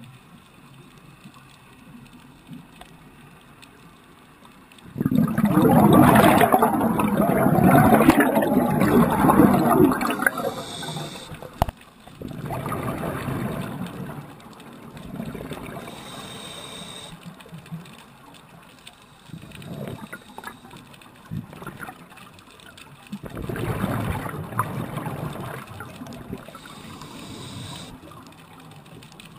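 Scuba diver's exhaled regulator bubbles, heard underwater, bubbling past the camera in bursts: a long loud one about five seconds in, a shorter weaker one around twelve seconds, and another around twenty-three seconds.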